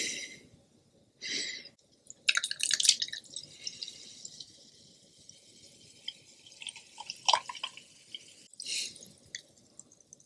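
Close-miked eating sounds: wet chewing and smacking in short irregular bursts, with quieter gaps between.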